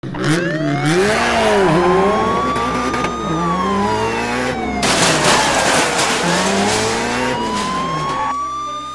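Police car siren wailing, its pitch rising slowly, falling and rising again, over the engine and tyre noise of a car driving fast.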